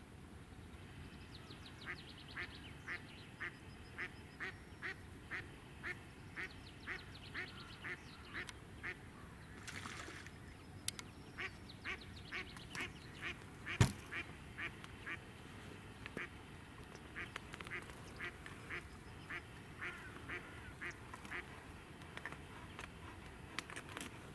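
Mallard hen, a live decoy duck, quacking in long runs of about two quacks a second to call in drakes. A single sharp click about halfway through is the loudest sound.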